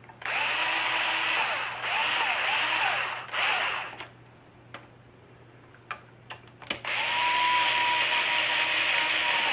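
Power drill driving screws back into a router's cover. Three short runs of the motor in quick succession, its pitch rising and falling with the trigger, then a longer steady run near the end, with small handling clicks in between.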